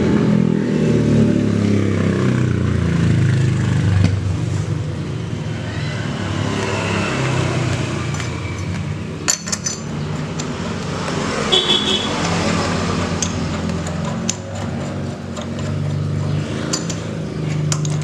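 Road traffic passing close by: vehicle engines rising and fading one after another, with a few small sharp clicks.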